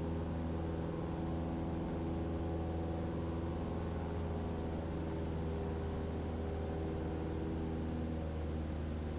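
Cessna 172 Skyhawk's piston engine and propeller running steadily in flight, heard from inside the cockpit, with a thin steady high whine over the engine drone.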